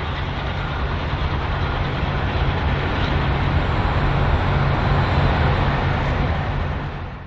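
L class diesel-electric locomotive running light engine, its diesel engine a steady low throb under general rail noise, swelling a little in the middle; the sound cuts off suddenly at the end.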